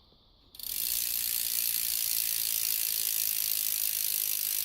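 BMX Animal Javelin rear hub freewheeling as the rear wheel is spun: its pawls click so fast they blur into a steady, high-pitched ratcheting buzz, starting about half a second in.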